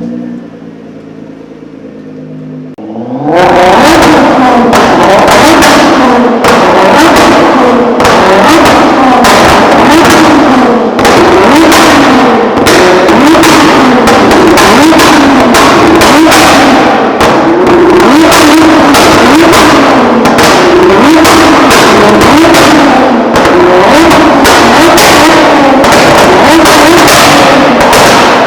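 Nissan GT-R R35's twin-turbo V6 idling, then from about three seconds in revved hard over and over, the pitch rising and falling roughly once a second. Sharp exhaust pops and bangs crack through the revs, from a pops-and-bangs map that shoots flames out of the exhaust.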